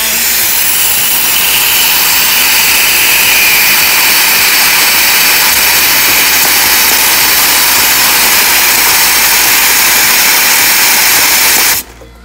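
Compressed-air blow gun blowing a loud, steady hiss of air into a perforated box of washed small plastic parts to dry them; the air cuts off suddenly near the end.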